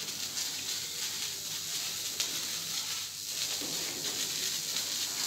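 Faint, steady fizzing hiss of a small firework burning on the ground, with a light click about two seconds in.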